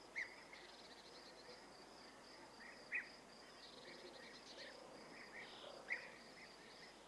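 Faint outdoor background of insects chirring: a steady, high, pulsing trill, with three brief louder chirps about three seconds apart.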